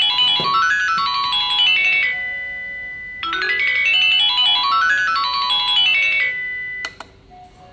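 K-CPM caregiver pager receiver ringing an electronic chime tune of quick rising and falling notes, playing the phrase twice. Just before the end a click as a key on the receiver is pressed, and the ringing stops.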